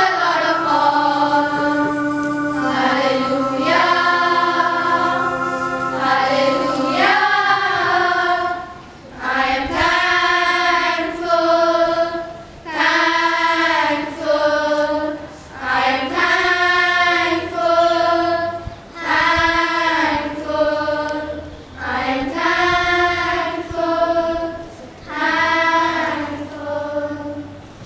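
A school choir of young voices singing together: long held notes for the first several seconds, then a run of short phrases, each about a second and a half, with brief breaths between them. The singing ends just before the end.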